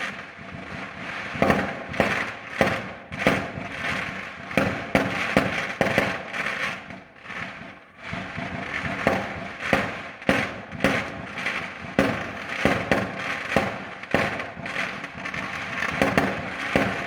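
Fireworks going off: a rapid, irregular string of sharp bangs and crackles, several a second, easing briefly about seven seconds in before picking up again.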